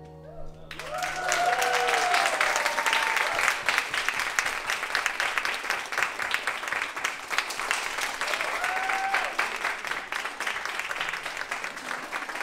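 Audience applauding after the music's last chord dies away, starting about a second in, with a few cheers and whoops near the start and again around nine seconds in.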